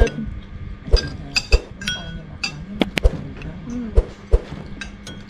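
Metal spoons and forks clinking and scraping on ceramic plates and bowls during a meal: a string of sharp clinks roughly a second apart, some ringing briefly.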